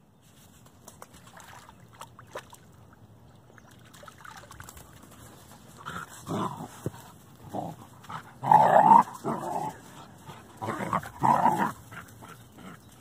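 German Shorthaired Pointer puppy vocalizing in play, with short growl- and whine-like sounds coming in three louder clusters in the second half.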